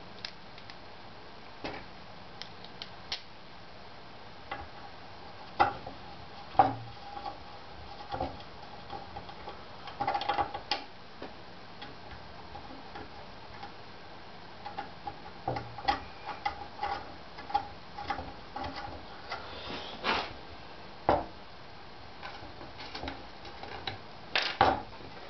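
Irregular small clicks and taps of bolts and corner pieces being handled and fitted onto a G10 printer bed plate by hand, some coming in quick clusters.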